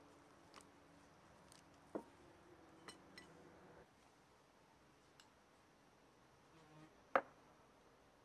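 Quiet table sounds: a few light clicks and knocks of dishes on a wooden table, the loudest a single knock near the end. A faint steady buzz runs through the first half and stops about four seconds in.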